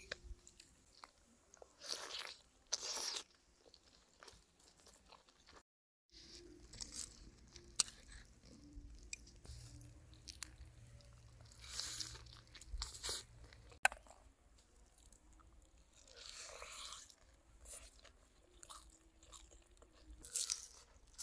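A person biting and chewing crunchy food, with several short bursts of crunching and quieter chewing between them.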